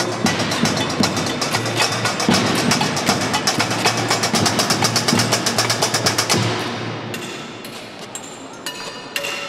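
Fast, dense clatter of taps and knocks from hand percussion on found objects, among them a foil-wrapped cup and a metal case struck by hand and with sticks. It thins out after about six seconds to a few scattered taps.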